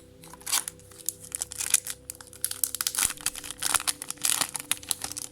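A Yu-Gi-Oh booster pack's foil wrapper crinkling and tearing open: a dense run of irregular crackles and rustles that starts about half a second in and dies away near the end.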